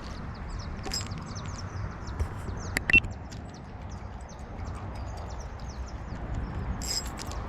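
Small birds chirping repeatedly in short, high, falling notes, with a few sharp clicks, the loudest about three seconds in, over a steady low rumble.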